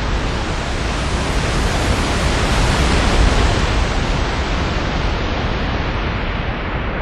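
Sea surf rushing, swelling to a peak about three seconds in, then easing off.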